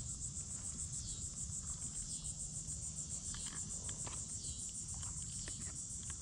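Insects trilling in a steady high, rapidly pulsing chorus, with a fainter falling call repeating about once a second and a few faint clicks in the second half.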